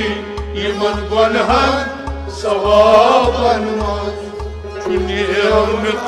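Kashmiri folk music: a wavering sung melody over rabab and sarangi, with a tumbaknari goblet drum keeping a steady beat of about two strokes a second.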